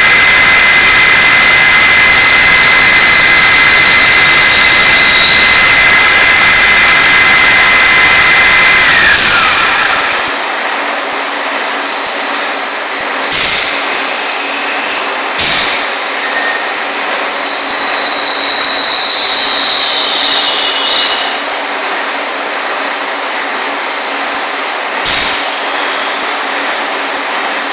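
Turret lathe running under a cut: a loud steady machining noise with a high whine that falls away about nine seconds in. After that the machine runs more quietly, with three sharp knocks.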